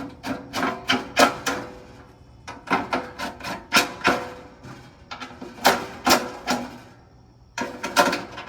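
Power drill driving 5/16 bolts, rattling out rapid clicks and knocks in four short bursts with pauses between.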